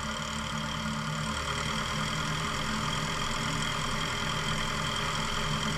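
Cessna Skyhawk's piston engine idling steadily, propeller turning, as the plane holds short of the runway waiting for departure.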